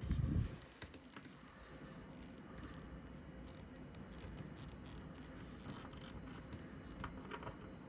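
A dull low thump right at the start, then faint small plastic clicks and rattles of a small action figure and its parts being handled and posed.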